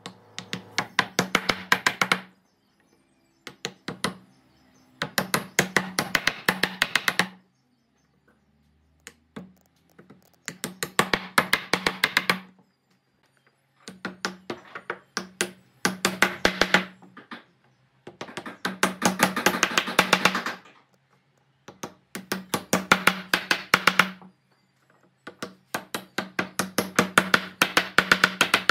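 A woodworking tool working wood in repeated bursts of rapid clicking, most about two seconds long, with short pauses between them.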